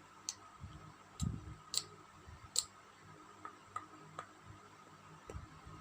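Handling noise from small plastic toy pieces and packaging: a few sharp clicks in the first three seconds, a dull bump about a second in, then fainter clicks and taps.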